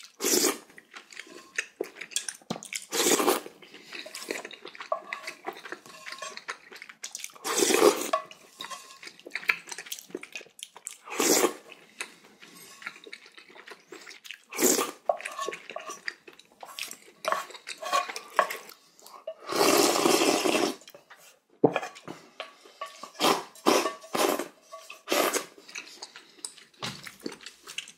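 Close-up eating sounds of pork-bone soup and radish kimchi: a spoon clinking on the bowl, wet slurps of broth and chewing, coming in short irregular bursts with several louder slurps about a second long.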